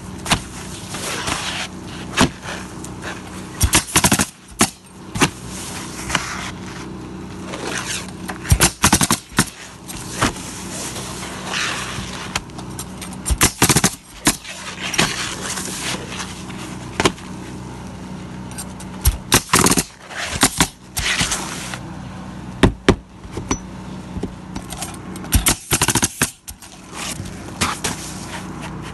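Pneumatic coil roofing nailer driving nails through asphalt shingles: sharp shots fired in quick runs of several, again and again, over a steady low hum.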